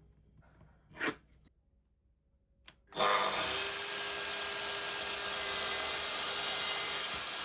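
A power saw is switched on about three seconds in and runs steadily, cutting an oak board to length. Before it starts there is a single light knock.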